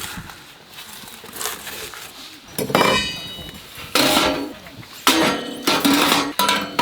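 Dishes, pots and cutlery clinking and clattering while being handled, in several loud bursts from a little over halfway through, one with a short metallic ring.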